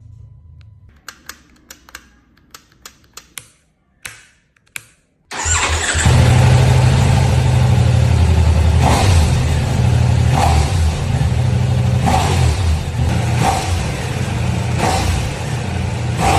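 A few clicks, then the Ducati Diavel V4's V4 engine starts about five seconds in and runs loudly, with short throttle blips about every one and a half seconds.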